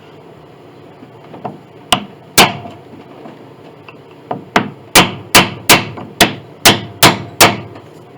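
Hammer blows on wood, a series of sharp knocks: two about two seconds in, then a steady run of about eight at roughly two a second. They are striking a glued piece of an antique grand piano's case to work it loose.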